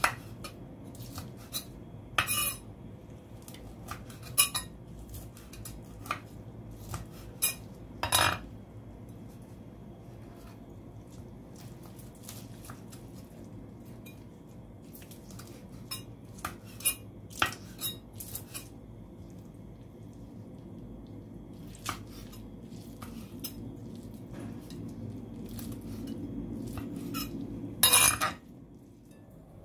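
Chef's knife slicing crispy fried eggs on a wooden cutting board: irregular clicks and taps of the blade against the board, a few louder chops among them, the loudest a little before the end.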